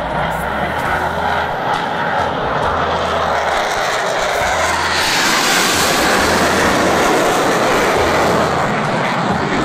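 Jet roar from a Blue Angels F/A-18 Hornet's twin turbofan engines as the jet climbs overhead. The roar swells about halfway through and stays loud to near the end.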